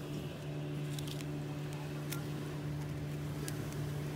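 A steady, even low hum, like an engine running at a constant speed, with a few small sharp clicks of fishing tackle and lure packets being handled.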